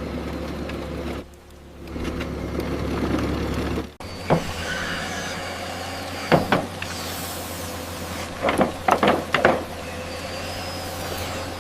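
Heavy machinery engines running steadily, with an abrupt change to another engine sound about four seconds in. Several short, sharp squeals follow in the second half.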